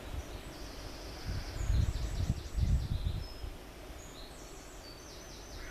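A bird singing in runs of quick, high repeated chirps and trills, with low rumbling in the middle that is louder than the song.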